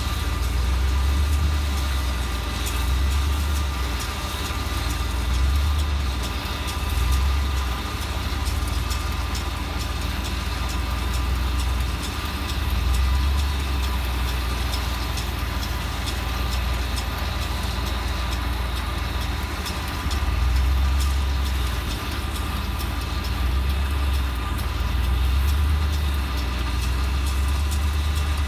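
John Deere 4066R tractor's diesel engine running steadily while driving a John Deere 335 round baler through the hay. A low rumble swells and eases every second or two, with a steady whine above it.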